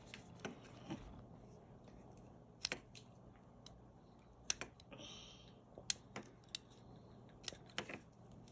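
Light, irregular clicks and snips of pliers working on speaker wire, with a short rasp about five seconds in.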